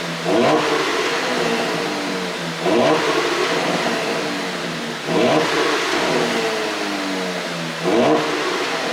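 Porsche Panamera 4's twin-turbo V6 exhaust revved in four quick blips, each rising sharply and then falling slowly back toward idle. The engine runs an ECU tune set up to make exhaust pops on the overrun.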